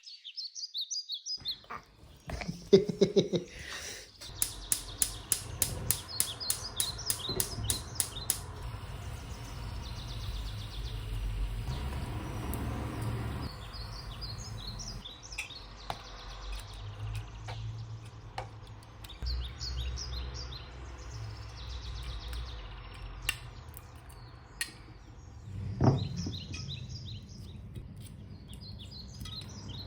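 Small birds chirping in short repeated calls over a low steady rumble, with a quick run of sharp clicks a few seconds in.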